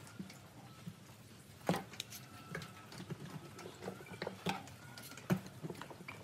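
Wooden board set down on a plastic-covered workbench and bar clamps handled: scattered knocks and clicks, the loudest about two seconds in and another about five seconds in.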